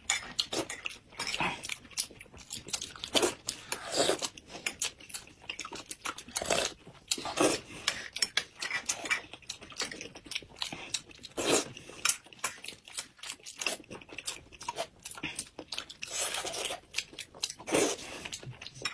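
Eating sounds of two people: slurping and chewing glutinous rice balls (tangyuan) in soup from spoons, with many short sharp mouth clicks and smacks and louder slurps every second or two.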